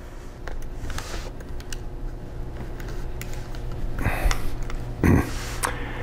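Light clicks and rustling of hands handling the laptop's internals and a flat ribbon cable, over a steady low hum. A short breathy exhale comes about a second before the end.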